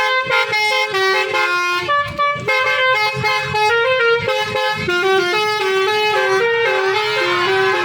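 Basuri musical air horn on a bus playing a 'telolet' melody: loud horn notes stepping up and down in quick succession.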